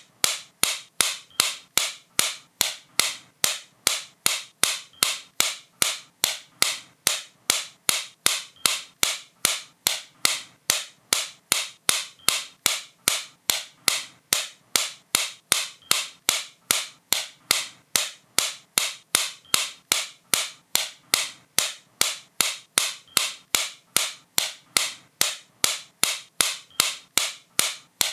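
A sharp click repeated at a steady rate, a little under three times a second.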